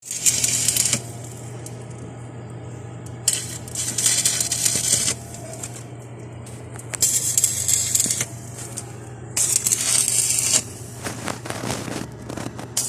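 Arc welding on a minivan chassis: four short bursts of crackling, spitting hiss, each about one to two seconds long, over a steady low hum.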